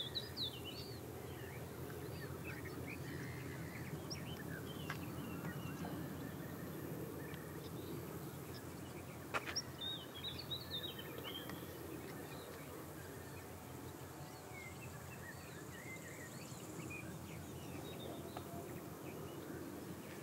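Outdoor ambience: small birds chirping on and off over a low, steady rumble, with one sharp click about nine seconds in.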